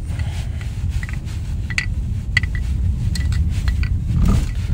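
Steady low rumble of a car's engine and tyres heard inside the cabin as it rolls slowly, with a few light clicks and rattles.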